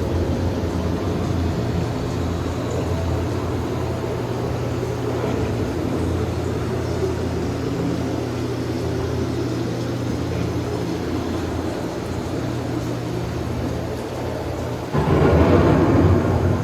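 Recorded thunderstorm effects in a boat ride's storm scene: a steady low rumble, then a sudden loud clap of thunder about fifteen seconds in.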